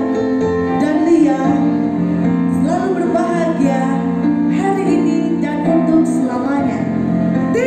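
A woman singing into a microphone over backing music with steady held chords, amplified through a sound system.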